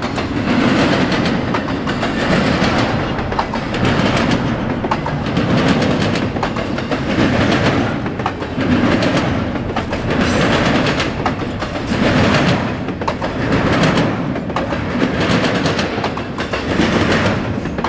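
Double-stack intermodal freight train's well cars rolling past close by: steady rumble of steel wheels on rail with clicking over the rail joints, swelling and fading every couple of seconds as each car goes by.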